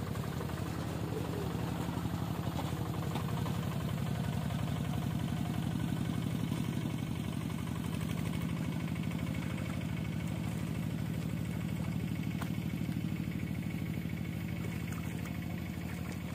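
A small engine running steadily at idle: an even low hum with a fast regular beat that does not change.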